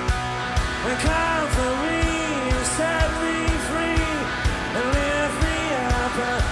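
Live rock band playing: a male lead vocal comes in about a second in over sustained electric guitars and a steady kick-drum beat.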